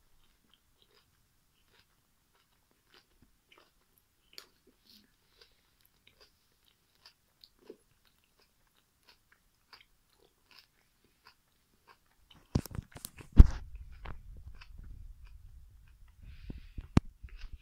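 Faint, scattered wet mouth clicks of someone chewing a banana with its peel on. About twelve seconds in, a run of loud knocks and low rumbling as the camera is handled and moved, the loudest knock a second later, with one more sharp click near the end.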